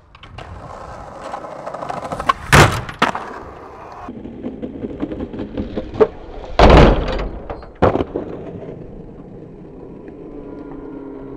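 Skateboard wheels rolling on rough asphalt, broken by several loud board clacks and slaps from tricks being popped and landed, the loudest about two and a half seconds in and again around seven seconds.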